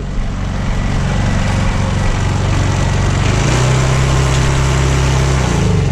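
Honda portable inverter generator running steadily at close range; about three seconds in its engine speeds up, then settles back down near the end.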